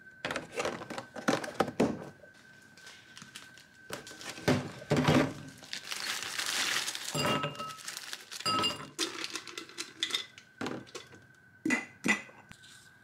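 Kitchen sounds of dishes, pots and utensils being handled: a run of clinks and knocks, with a stretch of hiss in the middle.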